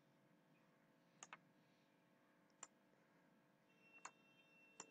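Near silence broken by a handful of faint, isolated clicks, spaced a second or so apart.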